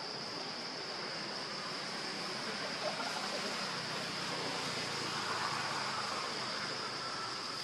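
Steady chorus of forest insects: a continuous high-pitched buzz over a soft background hiss.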